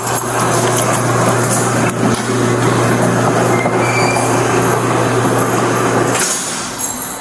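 A loud, steady mechanical rumble with a low hum underneath, like a large vehicle or machine running close by. It cuts off suddenly about six seconds in.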